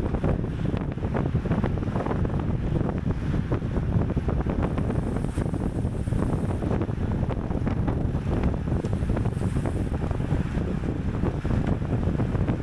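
Wind buffeting the microphone of a camera riding along at cycling race speed, a steady low rush.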